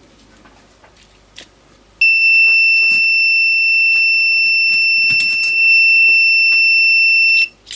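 An FX-951-type soldering station's buzzer sounding one continuous high beep for about five and a half seconds. It starts about two seconds in and cuts off near the end, while the iron's handpiece is unplugged and swapped, with small clicks of handling around it.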